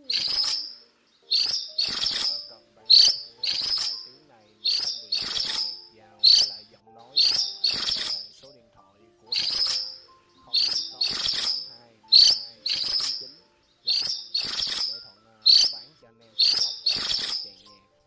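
Minivet calling: short, high, ringing trills repeated about once a second, often in close pairs.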